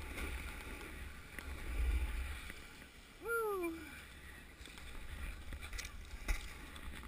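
Low wind rumble on an action-camera microphone outdoors on a ski slope, with one short call from a person's voice, rising then falling, about three seconds in, and a sharp click near the end.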